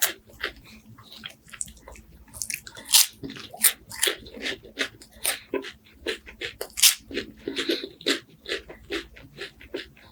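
Close-up crunching and chewing of crispy wafers, a dense run of irregular sharp crackles and crunches.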